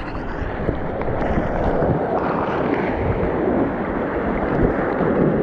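Steady rush of whitewater as an inflatable boat runs a river rapid, with water splashing against the boat and wind rumbling on the microphone.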